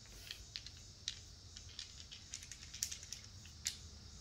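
A pair of dice clicking together in a hand, faint, irregular small clicks as the thrower handles and sets them before a throw.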